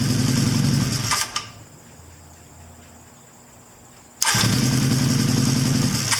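1983 Honda CB1000C motorcycle engine turning over on its electric starter in two bursts, the first stopping sharply about a second in and the second starting about four seconds in, with a quiet gap between. The starter is working again now that the starter relay connections have been cleaned.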